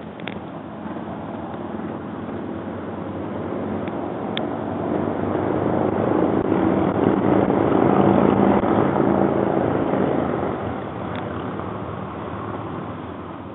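An aircraft passing over, its engine drone building steadily to a peak about eight seconds in and then fading away. Three brief sharp ticks sound over it.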